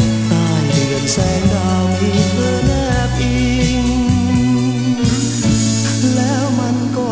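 1984 Thai pop song played from a vinyl record: full band with a steady bass line, drums and a wavering melodic lead, and a cymbal crash about five seconds in.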